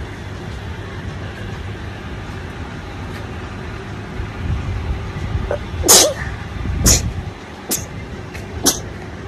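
A woman sneezing four times in quick succession, about a second apart, starting about six seconds in; the first sneeze is the loudest. A steady low rumble runs underneath.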